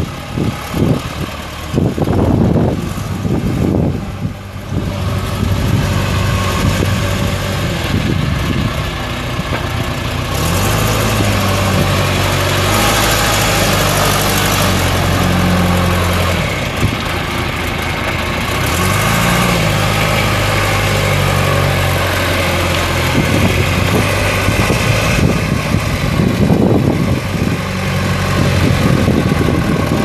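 A 1989 John Deere 410C backhoe loader's diesel engine running as the machine drives and turns, its pitch rising and falling with the throttle.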